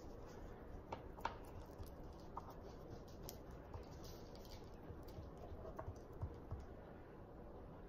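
Faint scattered light taps and pats as a hand presses dry spice rub onto a rack of pork ribs lying on a plastic cutting mat, over quiet room tone.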